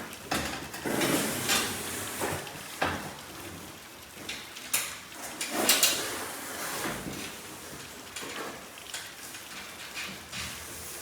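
Irregular knocks, clicks and clatter of garage door parts and tools being handled, over a steady hiss.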